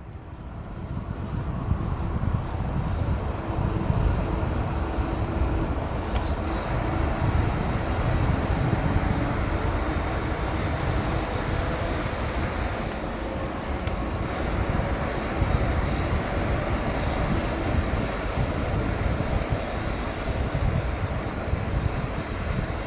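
Czech class 123 electric locomotive running across the station tracks: a steady low rumble of wheels and running gear on the rails. A few faint high squeals come about seven to nine seconds in.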